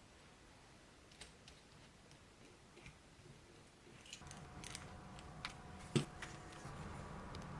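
Light clicks and small taps from small parts and tools being handled at a workbench, with one sharper click about six seconds in. A faint low hum comes in about four seconds in.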